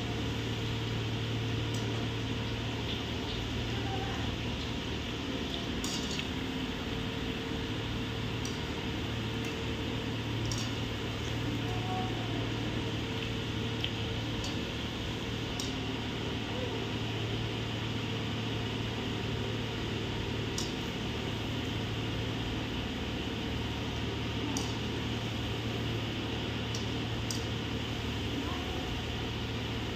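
Onion and potato pakoras sizzling steadily as they deep-fry in hot oil in a steel kadhai, with occasional light clinks of a wire skimmer against the pan. A steady low hum runs underneath.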